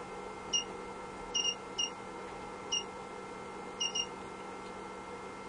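Seven short electronic key beeps from test equipment, coming at irregular moments and some in quick pairs, as a new test-signal frequency is keyed in. Under them runs a faint steady hum.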